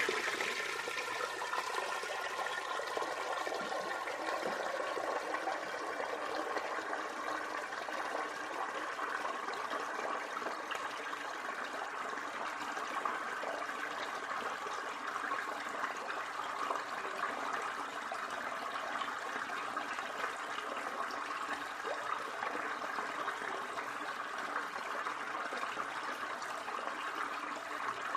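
Tap water running steadily into a bathtub as it fills, a continuous splashing gush.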